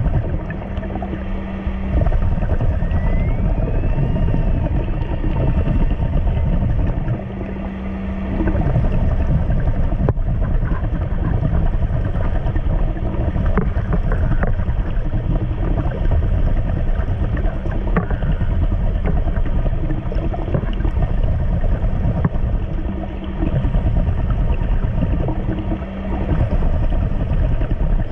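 Muffled underwater noise: a steady low rumble with a faint hum, dropping briefly a few times.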